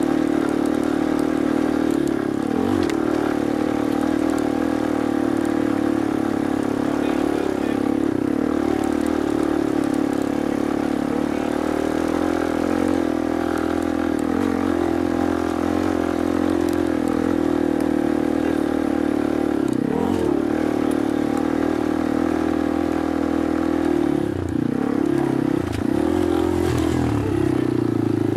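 Off-road motorcycle engine running at a steady pitch, dipping and rising briefly with the throttle a few times, most often near the end.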